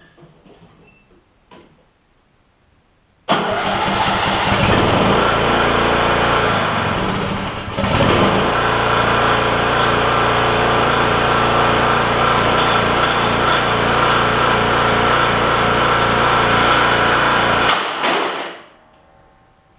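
A Troy-Bilt Pony riding mower's 17.5 hp Briggs & Stratton single-cylinder engine catches about three seconds in and runs loudly and steadily, with a brief dip a few seconds after starting. Near the end it stops dead in a crunch and spins down within a second: the connecting rod has broken and the engine has locked up.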